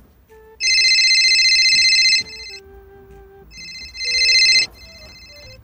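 Telephone ringing with an electronic trilling ring: two loud rings of a second or more each, the second growing louder, then a fainter ring near the end, over soft background music.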